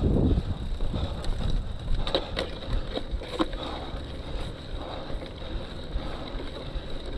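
Cyclocross bike's tyres rolling and grinding through deep sand, a steady low rumble with a few sharp clicks and rattles from the bike.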